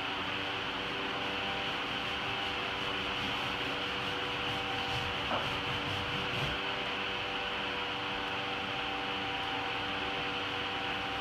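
Steady room hum and hiss, with faint rubbing as paint is worked onto a wall.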